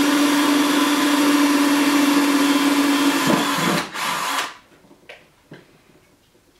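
Electric drill running steadily with a 7/64-inch bit, boring through a GoPro flat mount into a metal clamp. The motor note shifts a little over three seconds in, cuts out briefly, then stops about four and a half seconds in, followed by a few faint clicks.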